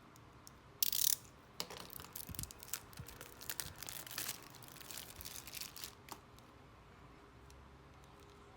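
Packaging being opened by hand: a short tearing sound about a second in, then a run of crackling, clicking plastic for about four seconds before it goes quiet.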